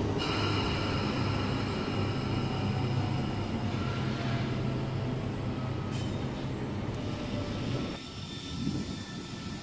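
A Sydney S-set double-deck electric train pulling out of the platform, a steady low running hum with several steady high-pitched tones over it. The sound drops away sharply about eight seconds in.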